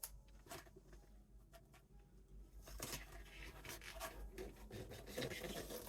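Faint rustling and scraping as packing tape and poster board are handled, with a few small clicks; the handling grows busier about halfway through.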